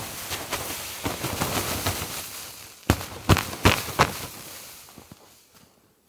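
Footsteps crunching and shuffling in deep fresh snow. About three seconds in come four sharp crunches in quick succession, then the steps fade.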